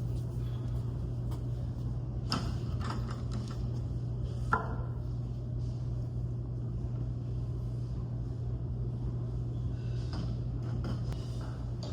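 Steady low hum of a gym room with a few scattered knocks from equipment being handled. The loudest is a short ringing knock about four and a half seconds in.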